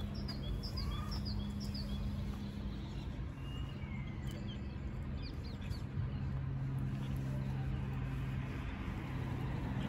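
Small birds chirping in short, high notes, thickest in the first couple of seconds and again a few seconds in, over a steady low hum.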